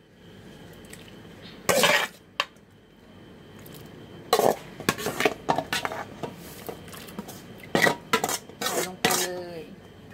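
Metal ladle clattering and scraping against a metal bowl and an aluminium cooking pot in three bouts, as chopped meat is scraped from the bowl into the broth.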